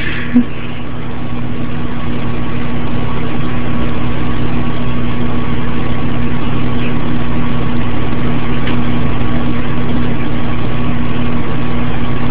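Loud, steady machine-like hum with a low drone, swelling over the first couple of seconds and then holding even.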